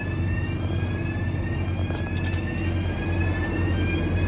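Heavy machinery engine running steadily at constant speed: a low hum with a high whine above it that climbs slowly and drops back every second or two.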